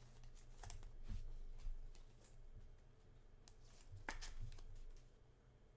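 A trading card being handled and slid into a clear plastic sleeve and holder: faint plastic rustling with a few soft clicks.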